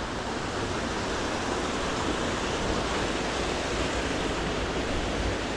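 Waterfall's water rushing in a steady, even wash of noise.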